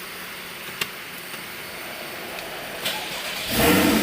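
Porsche Boxster's flat-six engine starting near the end: a sudden loud burst as it fires and catches, settling into running. Before it, a couple of sharp clicks.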